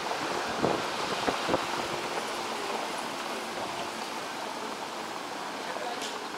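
Street ambience on a cobbled old-town street: a steady rushing noise with a car rolling slowly over the cobblestones, and three short knocks in the first two seconds.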